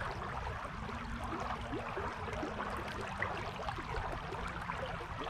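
Creek water running and babbling over rocks, a steady rush with many small splashy blips.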